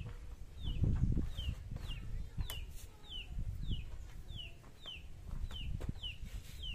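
A chick peeping over and over, about two short falling peeps a second, over low thumps and a few knocks.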